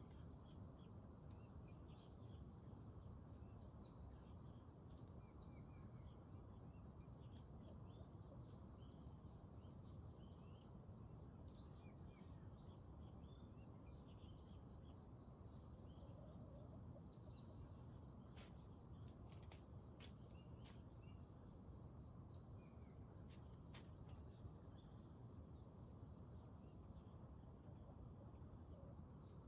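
Faint, continuous high chirring of insects, a rapid pulsing trill that never stops, over a low background hush, with a few faint ticks in the second half.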